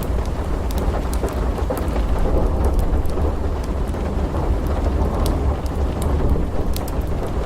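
Steady heavy rain under a continuous low rumble of rolling thunder, with scattered sharp pops from a crackling wood fire.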